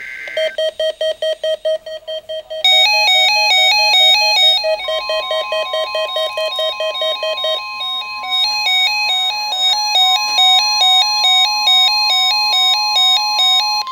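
NOAA Weather Radio warning alarm test: a weather alert receiver's alarm goes off with fast beeping, then a loud alternating electronic beep pattern. About five seconds in, the broadcast's steady 1050 Hz warning alarm tone starts and holds to the end under the beeping.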